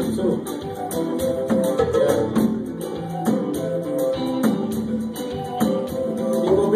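Live band music: guitar notes over a steady, fast beat of high percussion strokes.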